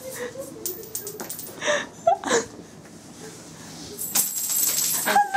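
Light metallic jingling and clicking, like small metal objects rattling together: a short run about a second in and a longer one from about four seconds in. Short bursts of voice come in between.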